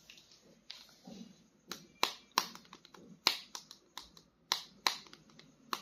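A series of sharp, irregular clicks and taps from hard plastic action-figure toys being handled, about a dozen in all, coming closer together in the second half.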